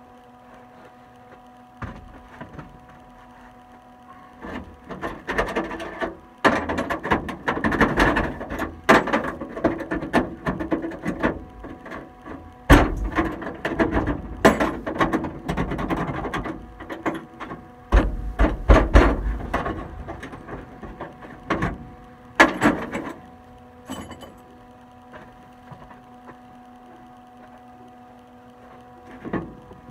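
Wire-feed welder crackling in a long run of bursts as it welds a sheet-steel patch into a car's floor pan, from about five seconds in until a little past twenty seconds, over a steady hum.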